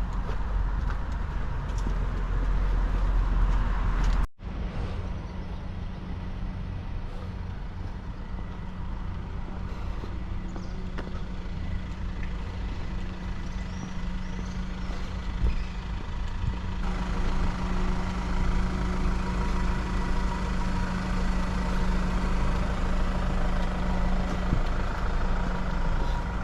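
Steady low hum of an engine running over outdoor street noise, cutting out for an instant about four seconds in.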